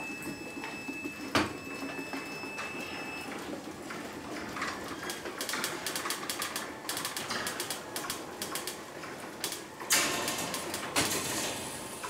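Ryobi One+ garage door opener, running on a 1.5 Ah 18 V battery, closing the garage door: a click about a second in, then several seconds of steady motor-drive and door rattle, louder for a moment near the end before it stops. The motor is struggling a little on the small battery and closes the door slowly.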